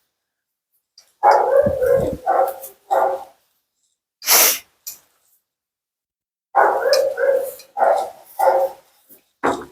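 Siberian husky "talking": two runs of short, wavering woo-woo calls, each run lasting about two seconds, with a brief hissing burst between them.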